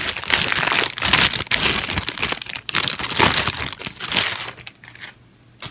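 Thin plastic packaging crinkling as a wristband is pulled out of its bag, close and loud; it dies away about five seconds in, followed by a single click.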